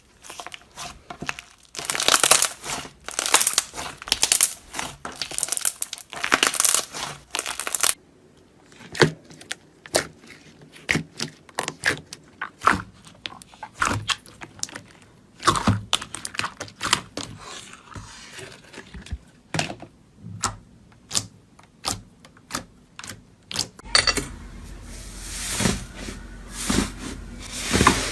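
Slime being worked by hand: a run of sticky pops, clicks and crackles, dense at first and sparser later. The sound changes abruptly twice, at about 8 s and about 24 s.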